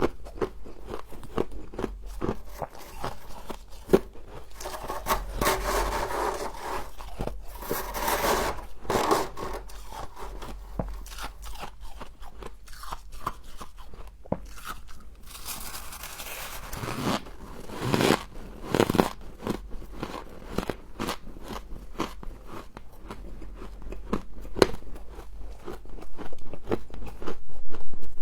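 Close-miked crunching and chewing of humidifier frost: many sharp crackling bites, with denser, longer stretches of crunching about five to nine seconds in and again around fifteen to seventeen seconds.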